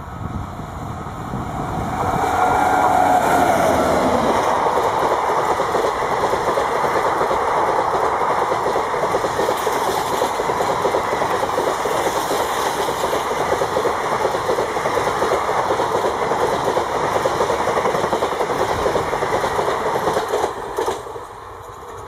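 WAP-7 electric locomotive passing at speed with its horn sounding for about two seconds, followed by the express train's coaches running past with a steady noise of wheels on rail. The noise cuts off sharply about 21 seconds in as the last coach clears.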